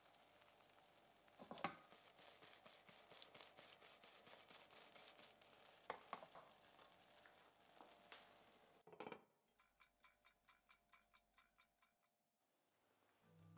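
Oil sizzling and crackling faintly under a chickpea-and-cabbage pancake frying in a pan, with a couple of light knocks. About nine seconds in, after a sharper knock, the sizzle cuts off, leaving a short run of quick, even ticks.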